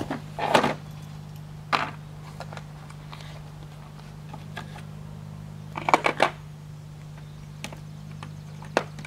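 Scattered metal clicks and clinks of a socket wrench being fitted to a 10 mm bolt and worked, with a quick run of clicks about six seconds in, over a steady low hum.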